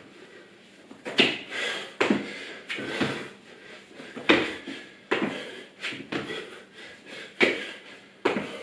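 Burpees on a tiled floor: repeated thuds and scuffs of trainers and hands landing on the tiles, roughly once a second and unevenly spaced.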